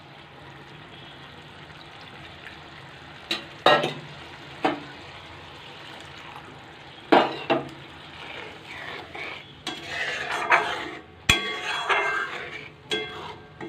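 Metal spatula scraping and knocking against a metal kadai while stirring a simmering masala gravy, over a steady low sizzle. A few separate knocks in the first half, then busier scraping and clinking from about two thirds of the way in.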